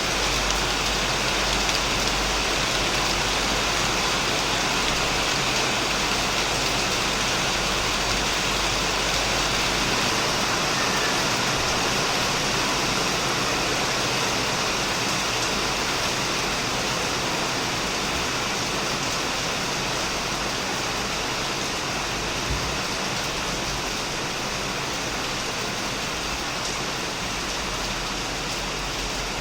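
Heavy rain falling steadily on a shed roof, a dense, even patter without a break.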